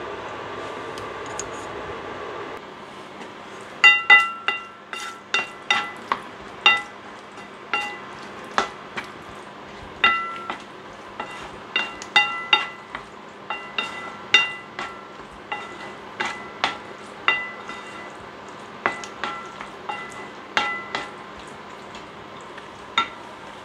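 Wooden spatula stirring a thick meat sauce in a nonstick frying pan, knocking against the pan again and again so that it rings briefly each time. The knocks start about four seconds in and come irregularly, about one a second; before them there is a steady hiss.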